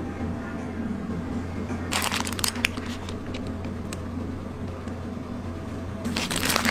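Paper crinkling and rustling in two bursts, about two seconds in and again near the end, over a steady low hum.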